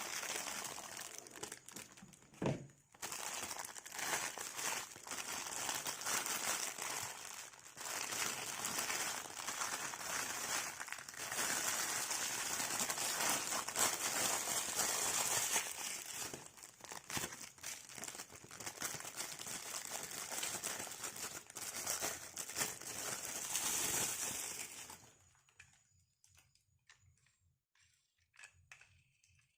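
Toy packaging crinkling and rustling continuously as it is unwrapped by hand, stopping about 25 seconds in, after which only a few faint clicks remain.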